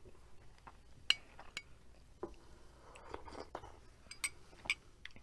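A metal spoon clinking against a small glass bowl of potato soup: a few sharp, separate clinks, the loudest about a second in.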